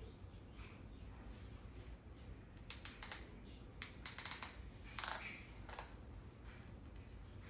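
Leather ratchet belt being fastened: clusters of soft clicks and rustles from the strap and buckle, the loudest about four and five seconds in.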